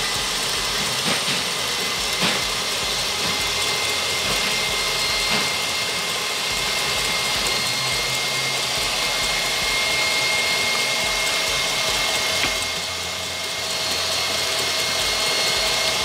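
KitchenAid Artisan stand mixer running at high speed, its paddle creaming butter, margarine and sugar in the steel bowl: a steady motor whine with a few light clicks.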